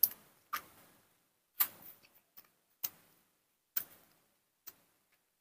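About seven irregular sharp clicks, a few trailing off in a brief hiss: a baby monkey sucking on a milk bottle's teat, with air slipping into the bottle.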